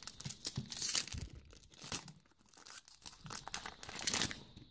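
Foil wrapper of a 2017 Select Footy Stars trading-card pack being torn open and crinkled as the cards are pulled out: a run of crackling, rustling bursts, the loudest about a second in, stopping just before the end.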